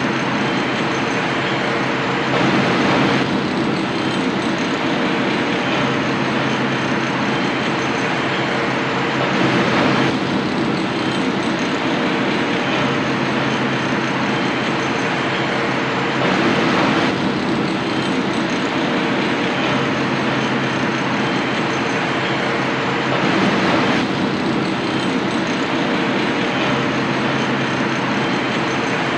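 Steady New York City street din: a dense, even roar with a low hum underneath, its texture shifting slightly about every seven seconds.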